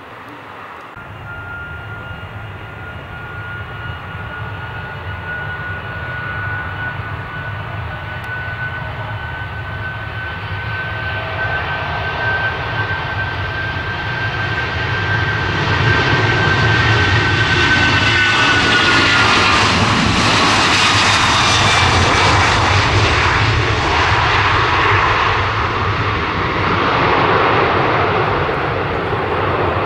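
Airbus A330 twin-engine jet airliner on its takeoff run: the engine noise builds steadily with a high fan whine, which drops in pitch about 20 seconds in as the aircraft passes, then a loud broad rumble as it lifts off and climbs away.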